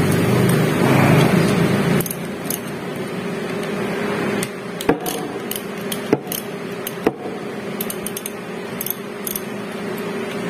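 Metal tools clinking and clicking against a meat grinder's opened motor housing as a socket wrench is set to its bolts: scattered sharp clicks over a steady low hum.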